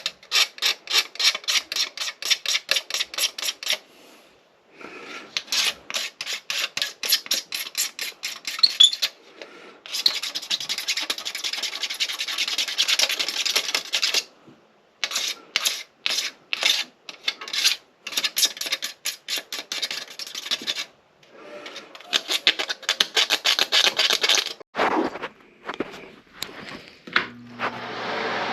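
Flathead screwdriver scraping rust off metal in fast repeated strokes, about five a second, in several bursts of a few seconds each with short pauses between them.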